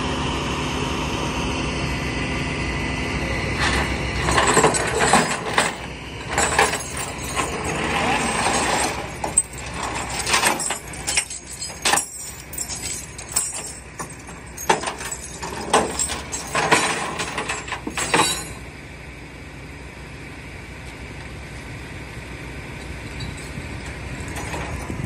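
Tow truck engine running steadily, then steel tow chain and hooks clanking irregularly for about fifteen seconds as they are dragged off the tilted flatbed deck and across the pavement. The chain noise stops suddenly, leaving only the quieter engine hum.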